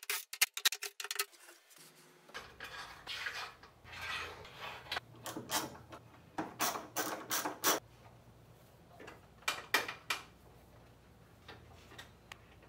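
Hands fitting MDF spoil-board strips and bolts onto an aluminum T-slot CNC bed: a run of irregular clicks, knocks and light metallic clinks from boards, screws and a hex key against the extrusion, with some scraping between them.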